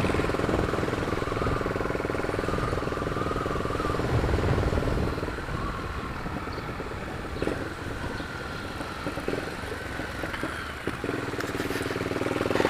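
Honda CB 300's single-cylinder engine running while the motorcycle is ridden, with a steady engine note that fades through the middle and comes back stronger near the end.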